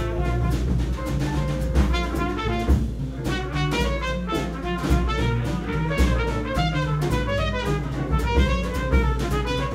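Live small-group jazz: a trumpet solos in fast runs of short notes, accompanied by piano and a drum kit keeping time on the cymbals.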